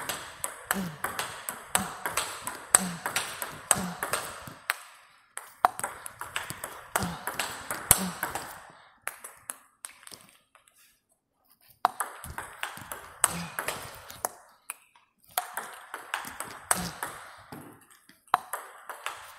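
Table tennis rally, close-to-the-table topspins: the ball clicks off the rackets and bounces on the table in quick succession. The runs of hits stop several times for short breaks, the longest about halfway through.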